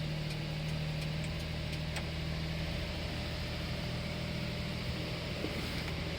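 Daihatsu Hijet Truck's 660 cc three-cylinder engine running steadily at an even, unchanging speed.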